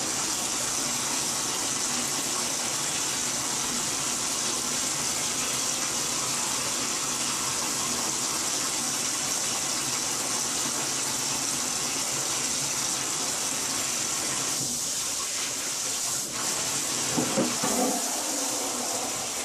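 Bathtub tap running steadily as a soapy dog is washed and rinsed in the tub. The flow sound shifts about fifteen seconds in, and a few brief louder splashes come near the end.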